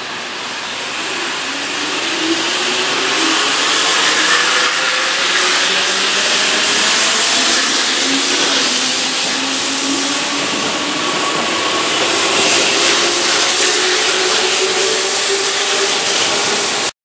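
Keihan 2200-series seven-car electric train pulling out of the station and gathering speed, its motors giving a rising whine over the steady noise of the running train.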